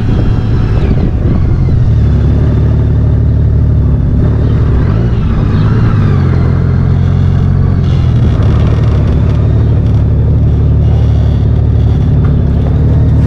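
2014 Honda Valkyrie's 1832cc flat-six engine running under way, with a change in engine note about five to six seconds in.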